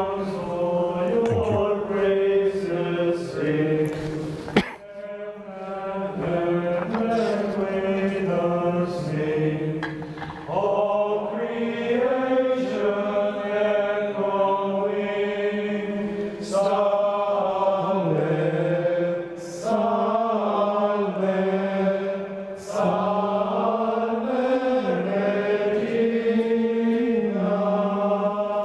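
A congregation singing a hymn together at Mass, in slow lines of long held notes with short breaks between lines.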